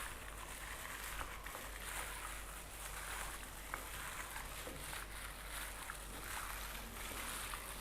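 Hands kneading and squeezing chopped pork ribs in their marinade: steady wet squelching and sloshing, with small clicks.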